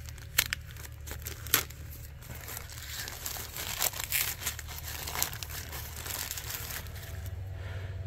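Clear plastic parts bag being torn and pulled open by hand, crinkling in irregular sharp crackles.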